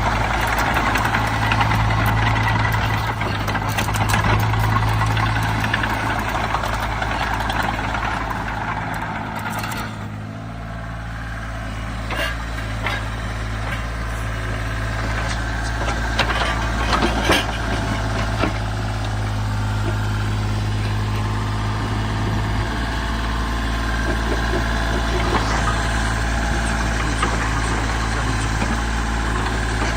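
Wacker Neuson EZ38 mini excavator's diesel engine running steadily, dipping briefly about ten seconds in. A few sharp clicks and knocks sound over it in the second half.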